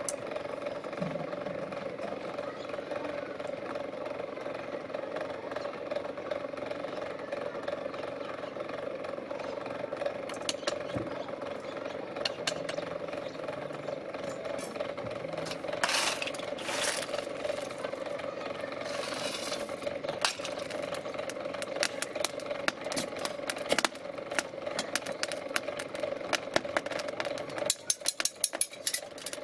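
A small motor hums steadily and cuts off about two seconds before the end. It is followed by quick clinks and scrapes of metal tongs against the crucible and furnace.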